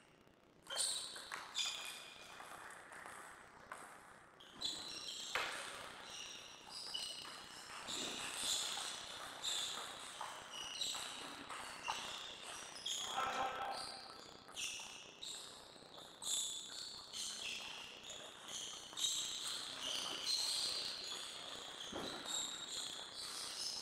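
Table tennis balls being struck and bouncing: many quick, overlapping, high-pitched ticks with a short ringing tone, irregular and near-continuous, echoing in a large hall.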